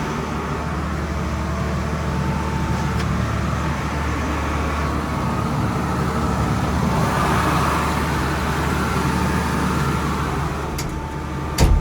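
John Deere 750C crawler bulldozer's diesel engine running steadily as the machine moves along. There is a brief loud knock near the end.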